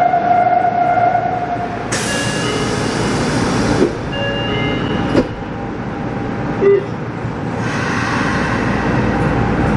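Subway train standing at a platform in an underground station. A steady tone sounds for about two seconds at the start, then a hiss about two seconds in, three short clunks, and another hiss near the end.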